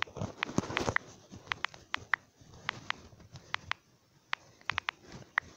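Typing on a phone's on-screen keyboard: quick, irregular taps, about three or four a second.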